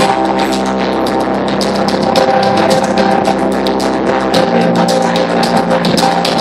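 Loud music with a steady beat over held chords; the bass shifts to a new chord about four seconds in.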